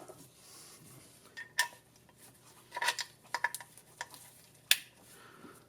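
Compression tester being handled and fitted into a spark plug hole: a handful of sharp metallic clicks and clinks spread over a few seconds, the loudest near the end.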